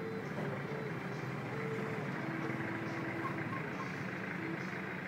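Steady background street noise: the hum of passing traffic.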